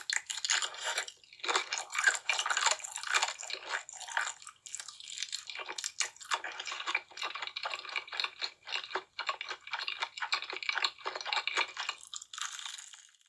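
Close-miked eating sounds: wet chewing and crunching of spicy noodles and fried chicken in quick, irregular strokes, stopping near the end.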